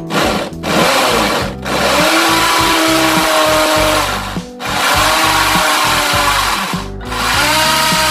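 A corded electric drill bores into a masonry wall. It runs in several long bursts, and its motor whine rises each time it spins back up after a short stop. Background music plays underneath.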